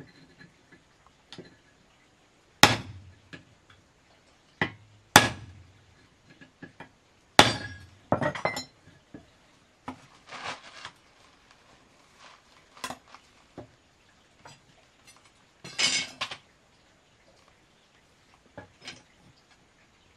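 Hammer blows on a steel rod held upright on a wooden block: three loud, ringing strikes a couple of seconds apart, each with a dull knock from the wood. They are followed by lighter metallic clinks and rattles as thin steel rods and wire are handled and bent.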